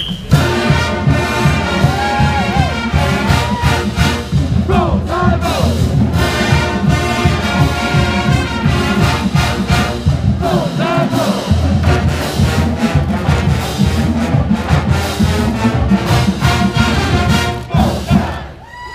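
College marching band playing a loud brass tune over a driving drum beat, breaking off shortly before the end.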